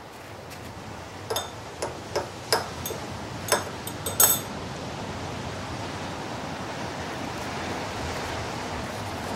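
Metal spatula clinking and tapping against a glass beaker and a paper thimble as crushed walnuts are packed in: about eight sharp clicks over three seconds, the last the loudest, over a steady hiss that grows slightly louder in the second half.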